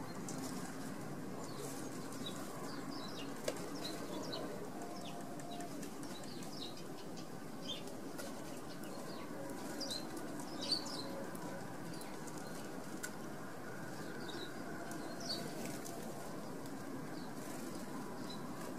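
Small garden birds giving short, high chirps and calls scattered throughout, over a steady low background rumble, with a few brief sharp sounds, the loudest about eleven seconds in.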